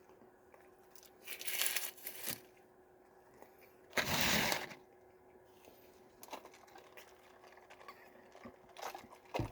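Paper food wrapper rustling and crinkling in two short bursts, about a second in and again around four seconds, with a few faint clicks of handling after: a McDonald's cheeseburger being unwrapped.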